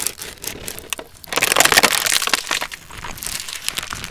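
Car tyre rolling over a plastic tray of small jelly cups, crushing and bursting them: a dense run of crackling and popping plastic. It is loudest from about one to two and a half seconds in, then thins to scattered crackles.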